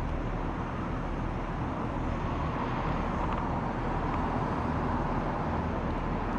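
Skid steer loader engine running steadily under load as it pulls the rope tight to pre-tension the line on the tree top: a continuous low drone.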